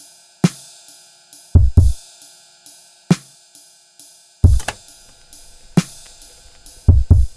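Background music: a drum beat of deep kick drum hits and sharp snare hits over held chords.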